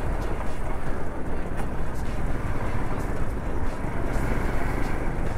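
Steady wind rush and road noise from a motorcycle ridden at speed, with the engine blurred into the general noise.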